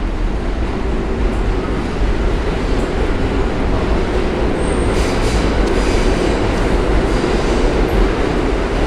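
New York City subway train running through the station: a loud, steady rail noise, with a thin, high metallic squeal from the wheels from about five seconds in.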